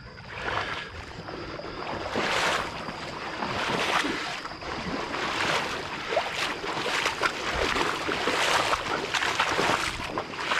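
Water swishing and splashing in repeated strokes, roughly one a second, as someone moves through shallow swamp water.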